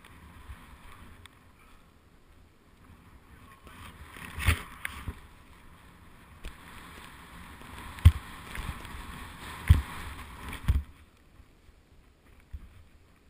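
Deep powder snow hissing under a rider's descent, heard from a helmet-mounted camera. The hiss builds through the middle and fades near the end, broken by four sharp thumps, the loudest about eight seconds in.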